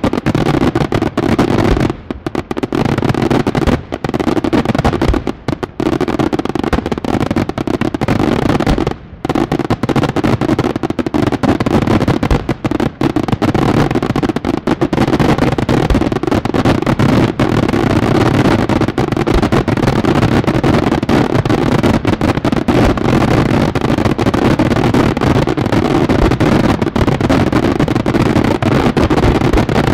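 Fireworks display: a dense, rapid barrage of aerial shell bursts, bangs following one on another almost without pause. There are a few brief lulls in the first nine seconds, and after that the barrage runs unbroken.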